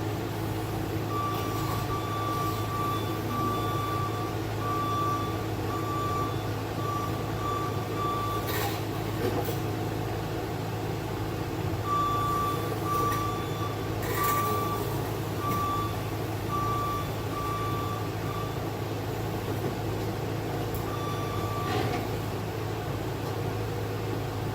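A heavy machine's backup or travel alarm beeping at one steady pitch, about one beep every three-quarters of a second. It comes in runs that stop and restart, over the steady hum of a running diesel engine. A couple of short knocks stand out among the beeps.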